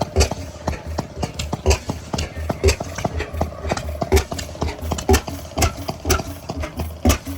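Several antique stationary gas engines running together: irregular sharp exhaust pops and clicks, a few each second, over a low steady hum.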